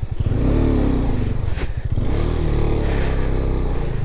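KTM 390 motorcycle's single-cylinder engine revving in two surges under load on a rough dirt climb, with a sharp knock about one and a half seconds in from stones striking the engine.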